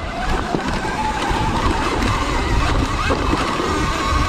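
Sur-Ron X electric dirt bike being ridden on a dirt trail. The motor and drivetrain give a whine that wavers and rises slightly with speed, over a low rumble of wind and tyres on the dirt.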